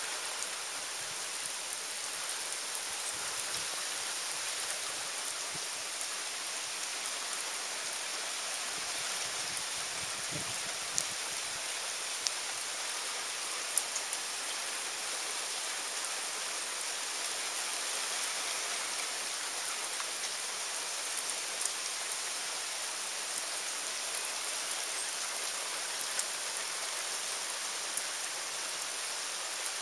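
Steady rain falling, an even hiss broken by a few sharper drop ticks around the middle.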